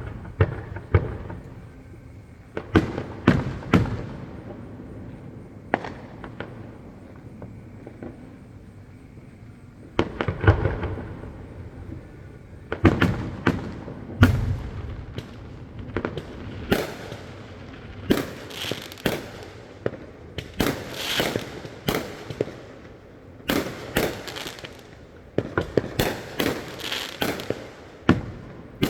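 Fireworks display: a string of booming shell bursts, each followed by a rolling rumble. The bursts come in scattered ones and twos at first, then in dense clusters of rapid pops from about halfway through.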